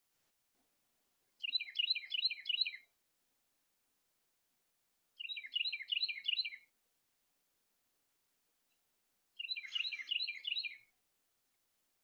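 A songbird singing three short phrases of quick repeated notes, each phrase about a second and a half long, with pauses of a few seconds between them.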